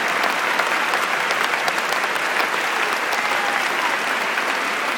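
Large audience applauding steadily, a dense, even clapping that holds through the whole stretch.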